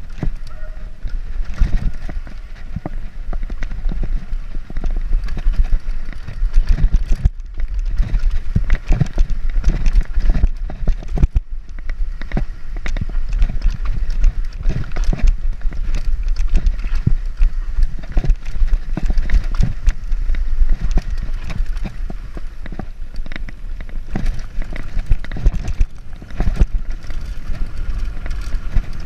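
Mountain bike rattling over a rough dirt trail on a fast descent, picked up by a camera on the rider: a dense, uneven stream of sharp knocks and clatters over a steady low rumble.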